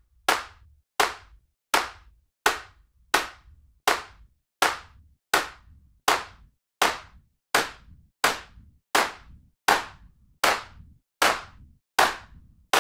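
Sampled hand claps from the AbletonOp Real Clap drum rack, built from layered recordings of real claps, repeating at an even pulse of about 1.4 hits a second, each clap with a short fading tail. The rack's Fatten macro is being demonstrated, which layers up to four slightly detuned grain-delay copies onto each clap.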